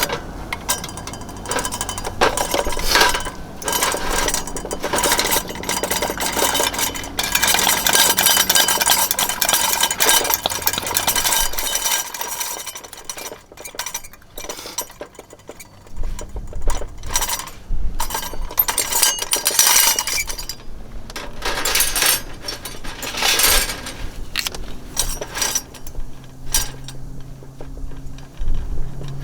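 Irregular light clinks and rattles of hard objects, going on throughout, over a low rumble of wind on the microphone.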